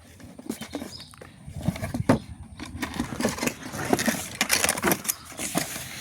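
Hard plastic being handled: a rapid run of clicks, knocks and rustles, busiest through the middle, as a toy RC truck's remote control and its packaging are turned and worked open.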